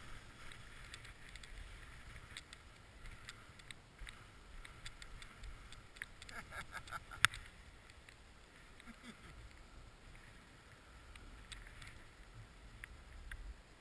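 Skis sliding and scraping over chopped-up, tracked snow during a downhill run, with low wind rumble on the microphone. Small clicks and chatter are scattered throughout, with one sharp click about seven seconds in.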